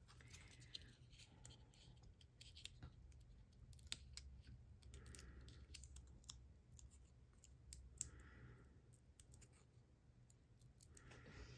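Faint scattered clicks and soft rasps of a strip of foam adhesive dots (dimensionals) being handled and peeled from its backing paper by fingernails, with two brief soft peeling rasps about five and eight seconds in.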